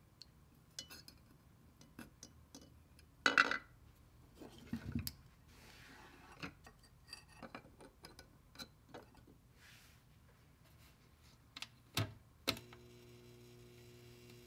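Scattered light clinks and knocks of a wire hook and metal against a glass jar as a steel wrench is hung in a nickel-plating bath. A steady electrical hum starts near the end, just after a click.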